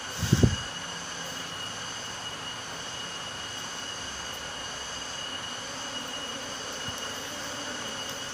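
Steady high-pitched insect drone with the hum of Asian honeybees around their opened nest. A brief low bump about half a second in.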